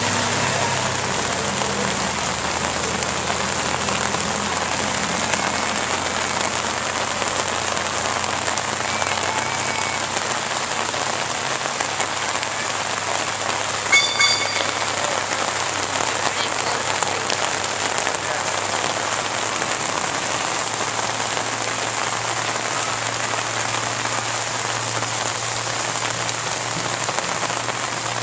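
Heavy rain falling steadily onto wet pavement, a constant hiss. A brief sharp sound stands out about halfway through.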